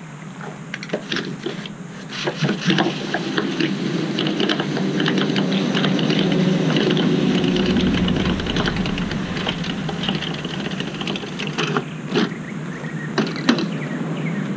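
Manual roll-out side awning on a truck camper being retracted by hand: a dense run of rattling and clicking from the roller and folding arms as the fabric winds in, with a few sharp clacks near the end as the arms are stowed.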